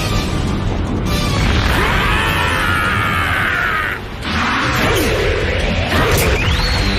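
Anime fight soundtrack: dramatic music under a drawn-out battle cry lasting a few seconds. It is followed by punch impacts and an energy sound effect that sweeps quickly upward near the end.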